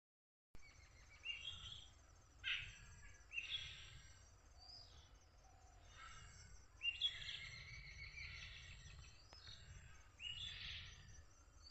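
Birds calling in short, repeated phrases of about half a second each, several clustered at a time, over a faint low rumble.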